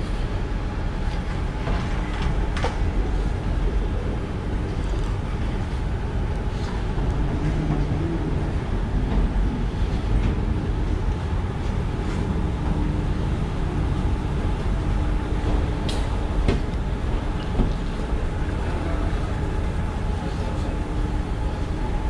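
Moving walkway running: a steady low mechanical rumble with a faint hum that comes and goes and a few light clicks.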